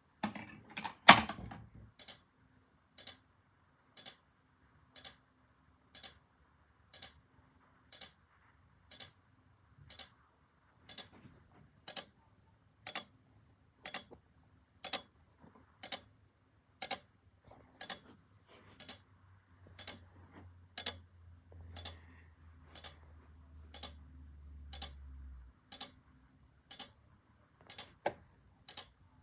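Steady mechanical clicking, about two sharp clicks a second, with one much louder click about a second in. A low hum comes in about two-thirds of the way through and cuts off suddenly a few seconds later.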